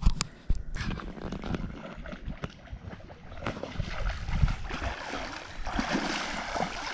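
Legs wading through shallow lake water, sloshing and splashing with each step, getting louder near the end. A few sharp clicks just at the start.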